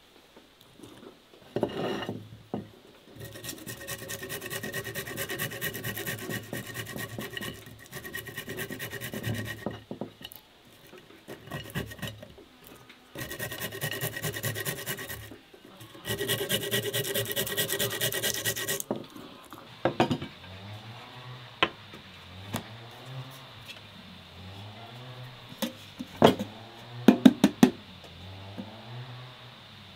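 Flat stainless steel hand grater scraping across food onto a ceramic plate, in three long runs of quick rasping strokes. In the last third come a few sharp knocks as a metal baking pan is handled on a wooden table.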